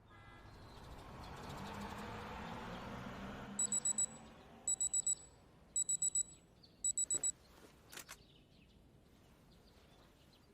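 Electronic alarm clock beeping: four rounds of four quick high-pitched beeps, about a second apart, followed by a couple of short clicks.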